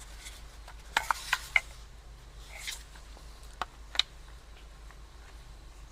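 A few light, scattered clicks and taps, about six in all and mostly in the first four seconds, as pressure washer fittings and accessories are handled, over a faint steady low hum.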